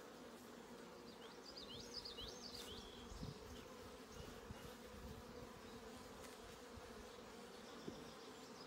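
Honey bees from an open hive humming faintly and steadily, with a few high chirping notes about two seconds in.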